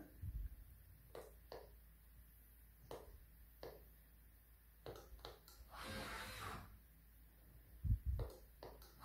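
A wall-mounted push-button switch for an electric window opener clicking as its buttons are pressed, about seven short clicks in the first five and a half seconds. A brief rushing noise follows about six seconds in, and two low thumps come near the end.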